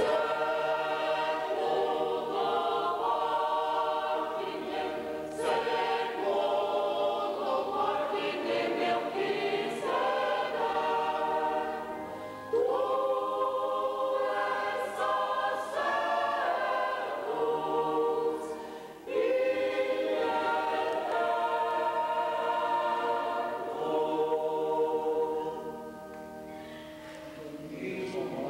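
Mixed church choir of men and women singing together in parts, with short breaths between phrases about twelve and nineteen seconds in; the singing fades out near the end.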